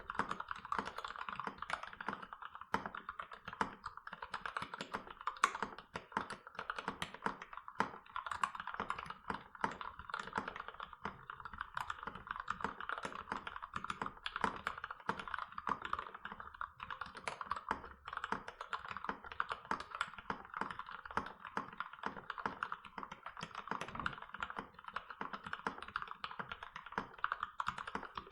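Continuous typing on a KBD75v2 mechanical keyboard with lubed Gateron Black linear switches in milky-top housings, PBT keycaps and an aluminium plate with foam. It is a dense, steady stream of keystrokes without pauses.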